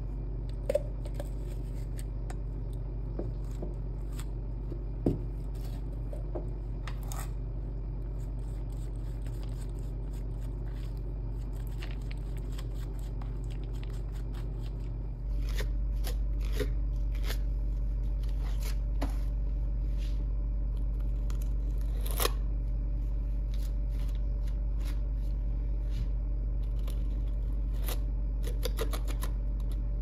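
Metal palette knife scraping and tapping thick sand-stone texture paste on a paper palette and canvas: scattered short scrapes and clicks over a steady low hum, which gets louder about halfway through.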